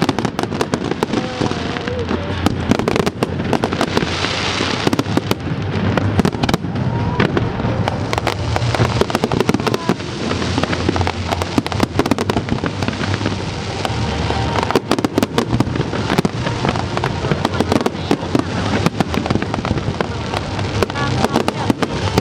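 Fireworks going off in a dense, continuous barrage of bangs and crackles, with a steady low rumble of overlapping explosions underneath.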